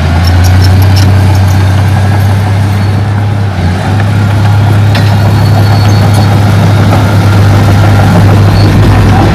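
Heavy diesel engine of earthmoving machinery running loud and steady with a deep drone, dipping briefly about four seconds in.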